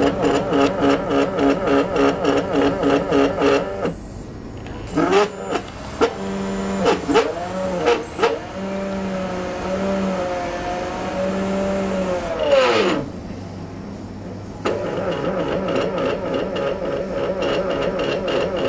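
CNC stepper motors driven through a USB motion-control board. A pulsing whine at about four to five pulses a second comes first; from about five seconds in the whine glides up and down, holds a steady pitch and falls away near thirteen seconds as the motors speed up, run and slow down. The pulsing whine comes back near the end.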